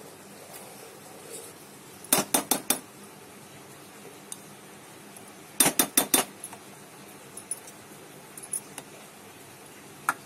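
Steel spoon knocking and clinking against a stainless steel pot while stirring milk curdling with lemon juice. Two quick runs of about four knocks each, about two and six seconds in, and a single knock near the end.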